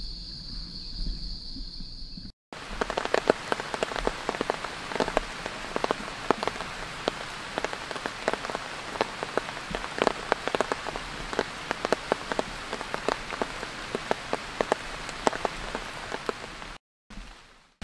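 Rain falling, with many large drops hitting a surface as sharp, irregular taps. Before it, a steady high drone of insects is cut off abruptly about two seconds in.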